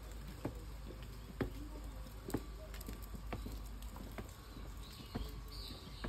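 A series of short, light knocks, about one a second, over a steady low hum.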